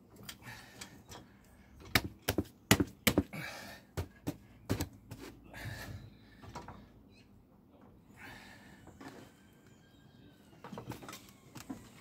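Trolley jack being worked by its long handle to bring the car's weight down on the tyre: a quick run of sharp knocks and clanks about two to five seconds in, and a few more near the end.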